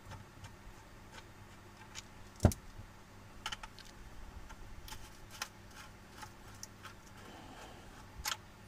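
Screwdriver turning screws out of a plastic Yamaha X-Ride tail-lamp housing: small scattered clicks and ticks, with one sharper knock about two and a half seconds in.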